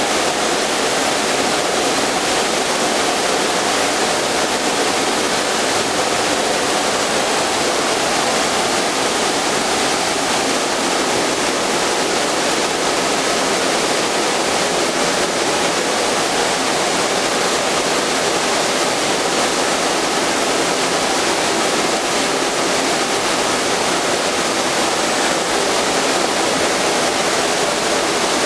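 Steady, even hiss with no rhythm, pitch or change, like rushing air or gas, heard during laser welding of subway car sidewall panels.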